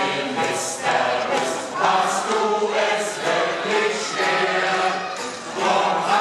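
A crowd of men and women singing a song together from song sheets, in phrases that run on without pause.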